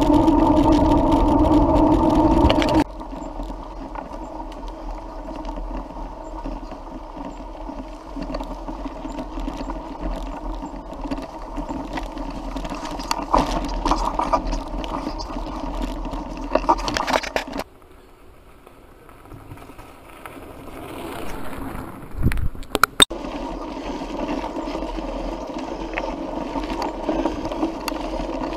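Mountain bike riding noise heard from the bike itself: a steady tyre hum that is loud on tarmac for the first few seconds, then cuts to a quieter rolling rattle on a dirt forest trail. A few sharp knocks come a little past the middle.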